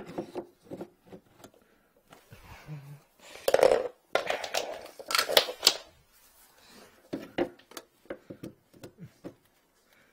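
Handling noise from work under a sink: an irregular run of light clicks and knocks, with two louder rustling, scraping stretches about three to six seconds in, as gloved hands and clothing brush against the body-worn microphone.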